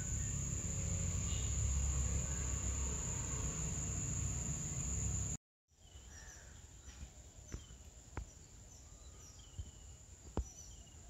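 Outdoor garden ambience: a steady high insect drone over a low rumble. After a brief dropout about five seconds in, it turns quieter, with short bird chirps and a few light clicks over a fainter insect drone.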